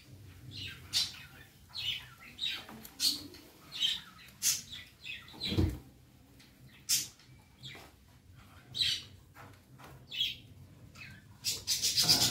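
Lightweight aluminium tripod being set up by hand: short squeaks and clicks from its telescoping legs and plastic locks, about one a second, with a low knock a little past halfway. Near the end comes a fast, steady rasping rattle as the tripod head is worked.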